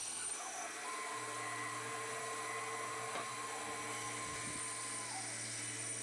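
Bandsaw running and cutting through a walnut slab: a steady motor hum and blade noise, with a higher steady whine that holds for a few seconds in the middle.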